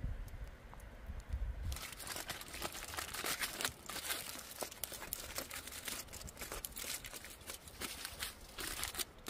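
Aluminium foil crinkling and crackling in quick, irregular bursts as hands wrap a potato in it, starting about two seconds in after a low rumble.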